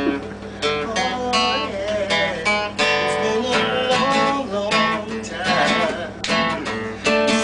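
Acoustic guitar strummed in a steady rhythm, an instrumental break between sung lines of a song.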